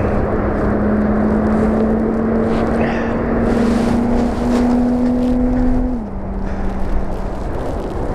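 An engine passing close by: a steady hum that climbs slightly in pitch, then drops about six seconds in as it goes past, over a dense, steady rushing noise.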